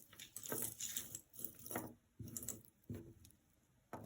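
Costume jewelry being handled, clinking and rattling faintly in a series of short rattles.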